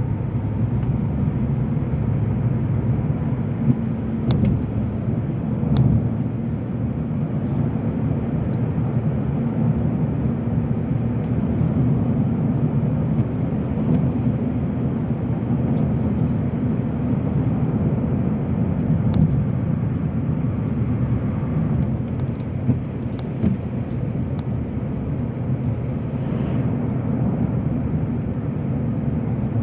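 Steady road and engine noise of a car being driven, heard from inside the cabin as a low, even rumble, with now and then a faint tick.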